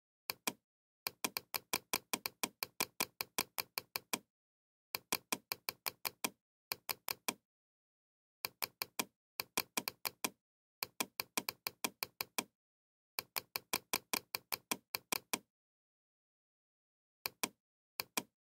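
Computer mouse clicking in quick runs of about seven clicks a second, broken by stretches of dead silence, as brush dabs are laid down in a paint program.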